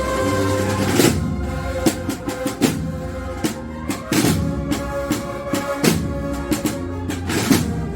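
Processional band's drum section playing a march: snare drums and bass drums striking in an irregular pattern of accents, under steady held notes from the band's wind instruments.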